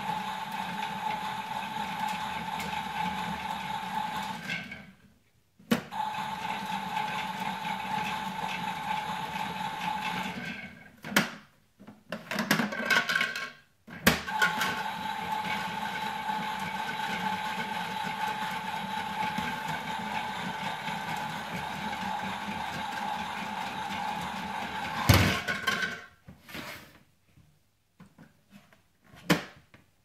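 Toy washing machine running: a steady electric whirr with a constant hum. It stops just over four seconds in, starts again, stops again around ten seconds, with a few short clicks and bursts before it starts once more. A loud knock about 25 seconds in ends it, followed by a few light knocks.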